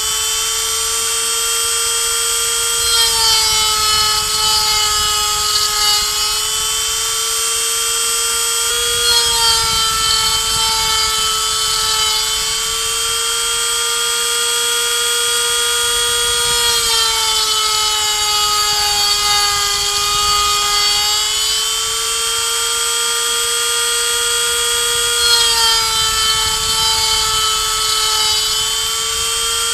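135 W handheld rotary tool, used as a CNC router spindle, running steadily with a 3 mm bit milling pine. Its high whine drifts slightly down and back up in pitch every few seconds.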